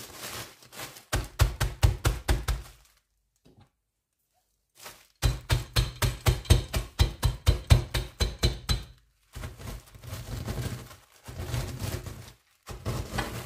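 Rolling pin beating spekulatius cookies in a plastic bag on a kitchen countertop to crush them into fine crumbs: bursts of quick knocks, about six a second, with short pauses between bursts.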